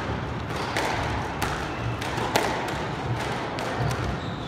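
A few sharp knocks of a squash ball in a squash court, the loudest about two and a half seconds in, over a steady hiss of court noise.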